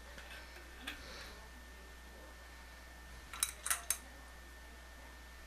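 Light clicks of hand tools against metal sink fittings: a single click about a second in, then three quick clicks a little past the middle, over a faint steady hum.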